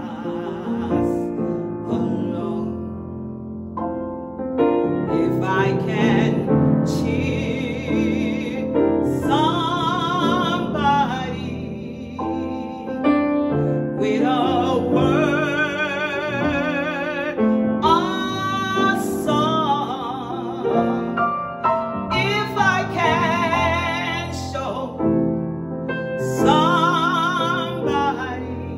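A woman singing a slow gospel solo with a wide vibrato on her held notes, accompanying herself on a grand piano.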